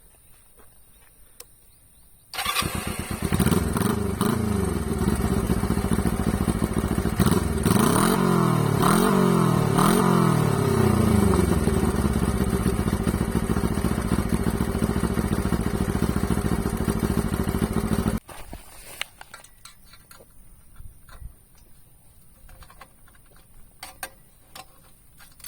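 Honda CB125T parallel-twin engine through a straight-pipe exhaust starting about two seconds in, blipped up and down several times, then idling until it is shut off sharply about eighteen seconds in.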